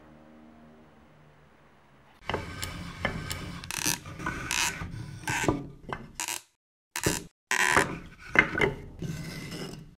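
Pine boards knocking, scraping and rubbing against each other and the workbench as a wooden cabinet box is fitted together, starting about two seconds in and cut into short pieces with abrupt breaks. Before that, only a faint low hum.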